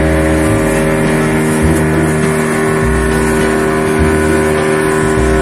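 Inboard engine of a wooden fishing boat running steadily while the boat is under way, with a low pulsing beneath its steady tones.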